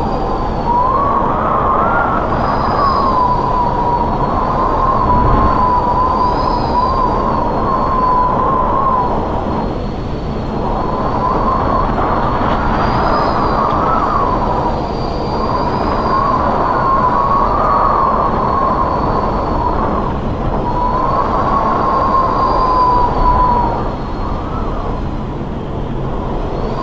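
Strong wind howling in gusts: a wavering, whistling howl over a steady rushing roar, swelling and easing four times with short lulls between.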